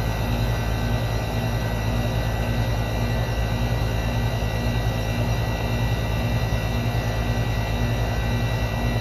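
Outdoor condensing unit of an old R22 central air conditioner running steadily: a low compressor hum under the even rush of the condenser fan.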